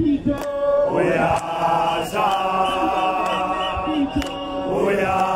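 Rally crowd chanting in long, drawn-out sung notes, several held for a second or more.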